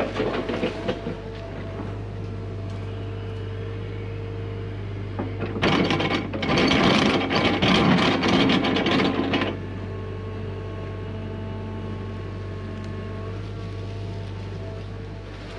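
Hyundai HX85A excavator's diesel engine running steadily through a trenching cycle, with some knocking in the first second. About halfway through comes roughly four seconds of loud scraping and clattering as the bucket works through rocky dirt.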